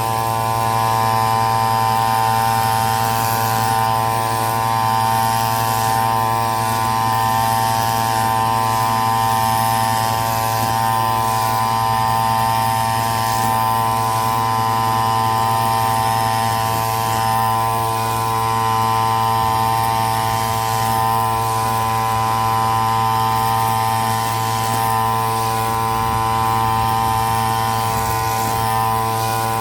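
Petrol brush cutter (grass trimmer) engine running steadily at high throttle while cutting grass.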